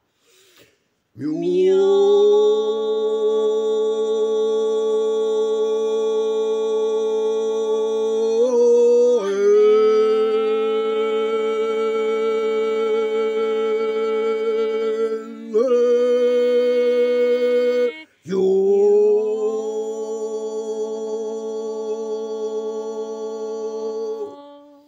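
A voice chanting long, sustained droning tones in a Buddhist devotional chant. It holds about four long notes of several seconds each, broken by brief breaks near 9, 15 and 18 seconds in.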